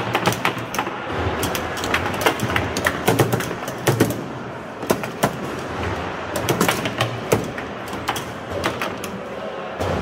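Foosball table in play: the ball knocked about by the hard plastic player figures and rebounding off the table walls, with the steel rods clacking as they are shot and spun. Irregular sharp clicks and knocks come in quick flurries, several a second, with short lulls between.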